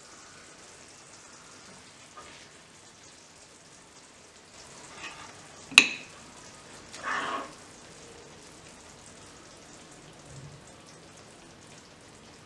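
A metal spoon serving saucy stewed chicken onto a porcelain plate: about halfway through the spoon strikes the plate once with a sharp, briefly ringing clink, and a second later a wet, squelching slide of sauce and meat follows, over small wet spooning sounds.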